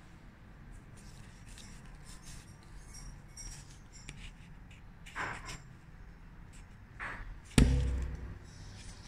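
Paper and plastic sticker sample cards handled in the hands, with faint light rustling and two short swishes about five and seven seconds in. A single sharp knock about seven and a half seconds in is the loudest sound.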